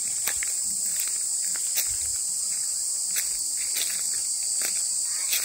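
Steady high-pitched chorus of insects in the grass and trees, with footsteps brushing and crunching through vegetation every half second or so.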